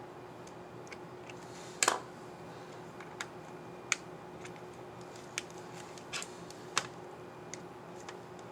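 Small plastic clicks from an Asus Vivobook S14 S406UA laptop keycap and its scissor mechanism being fitted and pressed. There are about seven irregular clicks, the loudest a quick double snap about two seconds in, over a faint steady hum.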